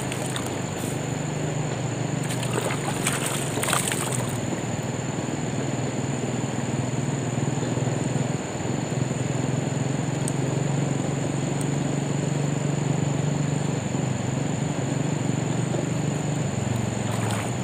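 Steady rush of a fast-flowing river running high after a flood, with a few short noises in the first four seconds.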